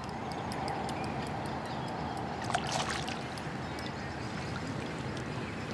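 Pond water sloshing around a landing net as it is pushed out to land a hooked perch, with a few small splashes about two and a half seconds in.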